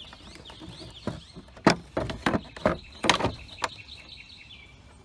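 Hard plastic knocking and clicking as a 2007 Honda CR-V tail light assembly is pressed back into its mounting tabs: a cluster of about eight sharp taps starting about a second in, the loudest early in the run, then stopping.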